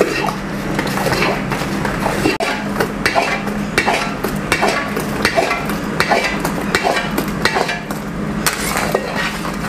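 Long-handled metal ladle scraping and knocking against a large metal kadhai in irregular clinks and scrapes as thick, finished kalakand is scooped out of the pan into boxes to set. A low steady hum runs underneath.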